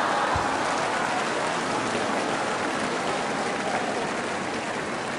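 Sumo arena crowd cheering and clapping just after a bout ends, the noise slowly dying down.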